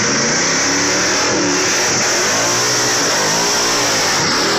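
Loud car engine revving, its pitch rising and falling several times over a steady high hiss.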